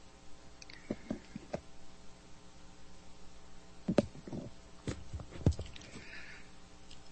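Pause between spoken phrases: a steady low hum, with a few soft clicks about a second in and a handful of louder knocks and clicks between about four and five and a half seconds in.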